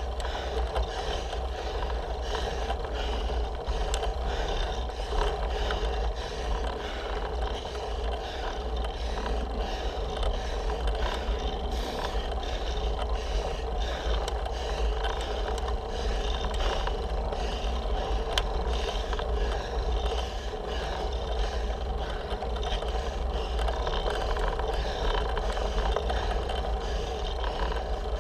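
Road bike climbing on an asphalt road: steady road and tyre noise with a deep rumble.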